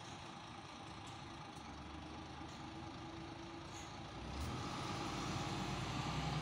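City bus engine running, a low steady rumble that grows louder about four seconds in as the bus comes closer.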